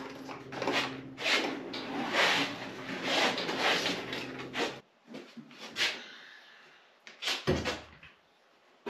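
Clunks and scrapes of a steel car door and its hinges being handled on a 1972 Chevy Nova body, with a steady low hum under the first half that cuts off abruptly about five seconds in.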